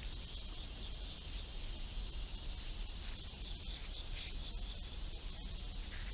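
Insects chirring steadily: a continuous high-pitched drone with a softer pulsing chirr beneath it.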